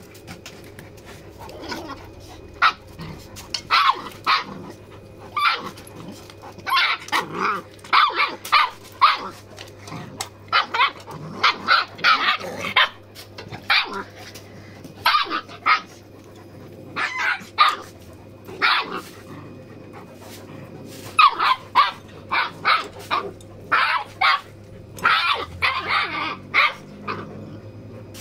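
Puppies barking in play with a bigger dog: many short, high yaps that come in irregular clusters.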